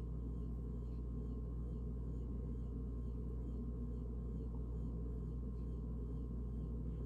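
A steady low hum of background room noise, unchanging, with no other sounds.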